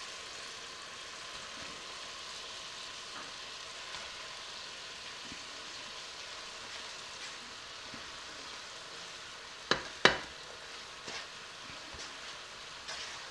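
Marinated pork and its juices sizzling steadily in a pot on the stove. About ten seconds in come two sharp knocks close together.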